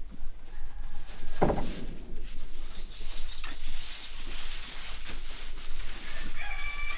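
A rooster crowing: one held crow begins near the end. Before it comes a brief noise about one and a half seconds in.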